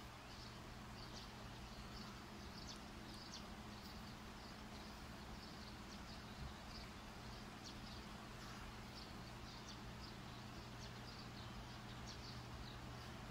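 Faint steady background noise with a low hum, and scattered faint high chirps of birds in the background. There is one soft knock about six seconds in.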